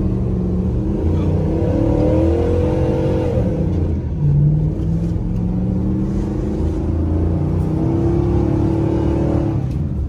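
Ram 1500's 5.7-litre Hemi V8 revving hard during snow donuts, heard from inside the cab. Its pitch rises and falls in two long sweeps, with a brief louder burst about four seconds in.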